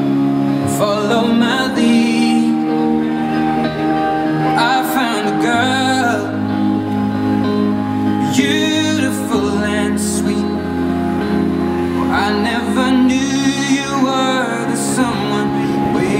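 A song playing: a singer's phrases, with vibrato, over held chords and bass notes.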